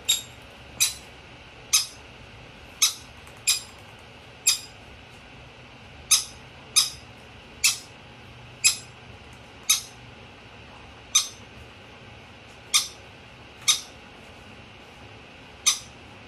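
Conure giving short, sharp, squeaky chirps, about fifteen at uneven intervals of roughly one a second, while being hand-fed from a syringe.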